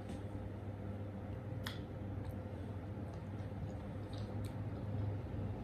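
Soft mouth sounds and a few small sharp clicks of people chewing chewy jelly balls, over a steady low hum.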